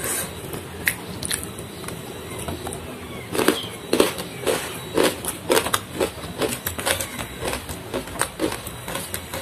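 Crunchy chewing close to the microphone, about two crunches a second from about three seconds in: raw jengkol and fresh vegetables being eaten. Before that, a few light clicks of fingers picking food from the tray.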